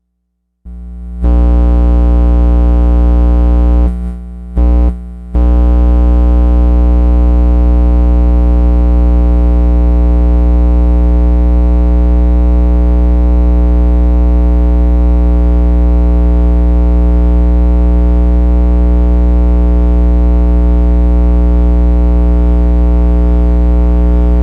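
Loud, steady electronic drone made through guitar effects pedals: a dense stack of held pitches over a heavy bass hum. It comes in under a second in, cuts out twice briefly around four and five seconds, then holds unchanged.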